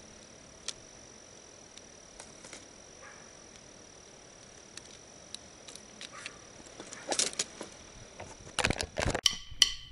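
Quiet night-time pond-edge ambience: a faint steady high-pitched insect tone over a low hiss, with scattered small clicks. Near the end comes a run of louder clicks and knocks.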